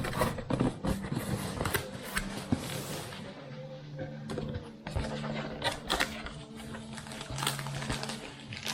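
Repeated sharp clicks and knocks of hard objects being handled, over background music with held low notes.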